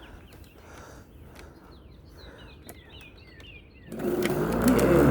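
Birds chirping faintly, then about four seconds in a battery-powered electric lawn mower's motor and blade start up, spinning up with a rising whine and settling into a loud, steady run: the mower starts first try on its freshly charged battery.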